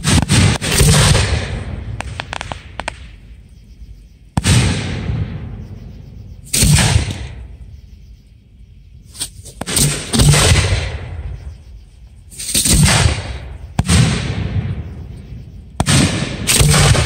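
Aerial fireworks shells bursting: a series of loud bangs about every two to three seconds, each trailing off over a second or two, with smaller reports in between.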